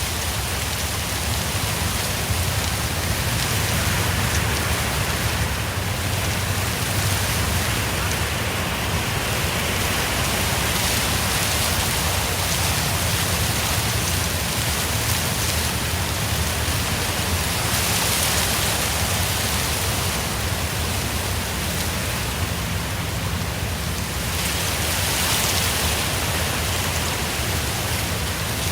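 Wind rustling steadily, with a low rumble of wind buffeting the microphone, swelling and easing in gusts every few seconds.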